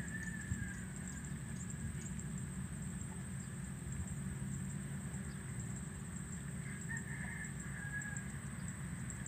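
Open-field ambience: a steady low rumble and a high hiss, with faint bird calls at the start and again about seven seconds in.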